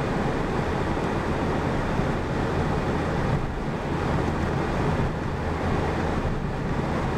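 Truck driving at road speed, heard from inside the cab: a steady low engine hum under even tyre and road noise.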